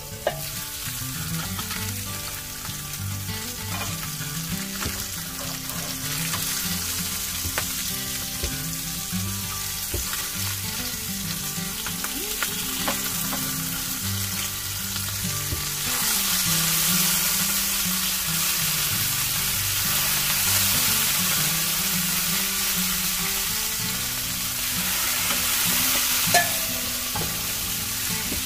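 Food sizzling steadily as it fries in oil in a pan, the hiss swelling about halfway through, with a sharp click near the end.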